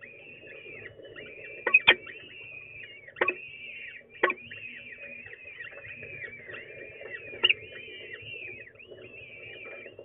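Peregrine falcon chicks giving continuous high, thin begging calls while being fed. Four sharp, loud clicks stand out above the calls, about two, three, four and seven and a half seconds in.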